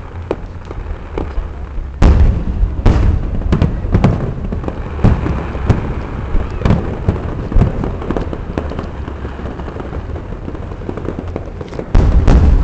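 Fireworks going off: a rapid string of bangs and crackles, with a heavy burst of booms starting suddenly about two seconds in and another loud cluster near the end.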